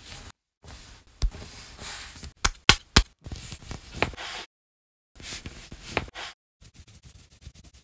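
ASMR dough-handling sounds: soft squishing and pressing as dough is kneaded on a wooden board, then three sharp knocks in quick succession. After that a blade cuts through the dough and strikes the board, twice, about two seconds apart.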